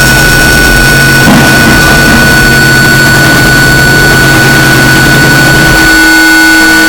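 Harsh noise music: a loud, dense wall of distorted noise with several steady whining tones held over it. About six seconds in, a low drone underneath drops out while the noise carries on.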